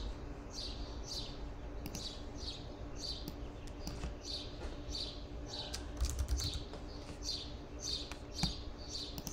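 A small bird chirping over and over: short high chirps that fall in pitch, about one every two-thirds of a second. Computer keyboard typing and a few clicks sound among the chirps.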